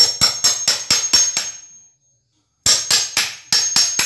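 Claw hammer striking a steel cold chisel in quick blows, about four a second, each with a bright metallic ring: two runs of strikes with a short break between them. The chisel is being driven in to pry a wooden form strip loose from the concrete slab.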